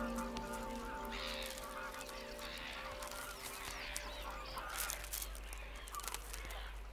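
Many large waterbirds calling together in a breeding colony: overlapping harsh honking calls with sharp clicks. Soft music tones fade out over the first few seconds.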